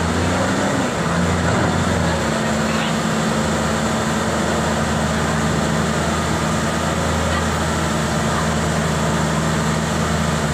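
Diesel engine of a container reach stacker revving up and held at high revs to power the hydraulic boom lifting a shipping container. The engine pitch rises in the first second, then stays steady.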